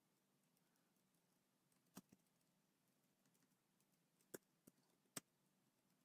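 A few faint, isolated computer keyboard keystrokes in near silence: two close together about two seconds in, then three more spaced out from about four seconds in.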